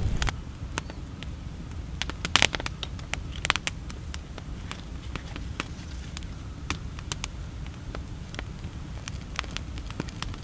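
Stick campfire crackling, with irregular sharp snaps and pops, a cluster of them about two and a half seconds in, over a low steady rumble.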